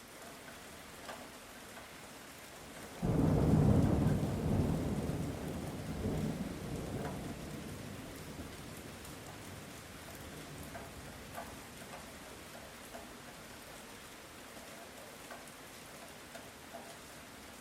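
Light rain falling steadily, with a sudden clap of thunder about three seconds in whose low rumble dies away over the following several seconds.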